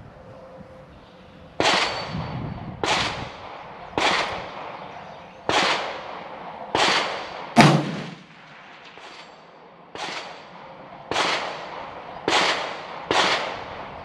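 A string of rifle gunshots, about ten sharp reports spaced roughly a second apart, each with a short echoing tail. One shot a little past halfway is louder and deeper than the rest.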